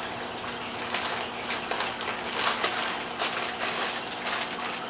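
Plastic packaging crinkling and rustling in an irregular run of crackles as a packaged item is handled and unwrapped.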